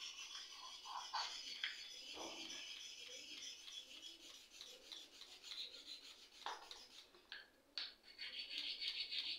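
A stick of white sandalwood rubbed back and forth on a wet grinding stone, a steady rasping scrape in even strokes, grinding sandalwood paste for puja. A couple of light knocks about two thirds of the way through.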